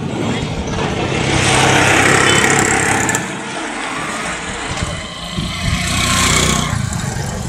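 Road traffic noise: a steady low engine hum under a rushing noise that swells twice, once about a second in and again near the end.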